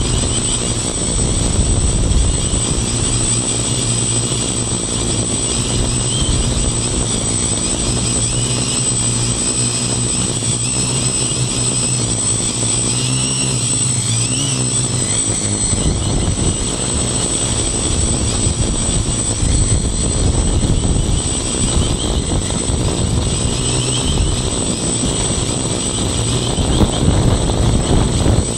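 Handmade quadcopter's electric motors and propellers buzzing steadily, heard close up from a phone strapped to the frame, with a constant high whine over the drone. The motor pitch wavers up and down about halfway through as the throttle shifts.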